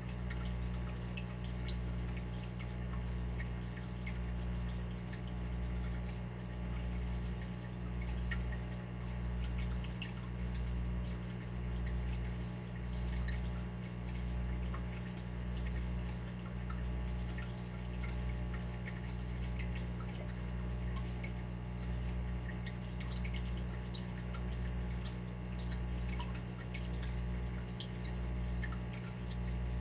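Water dripping and trickling, with scattered small drops over a steady low hum that swells and fades about once every second and a bit.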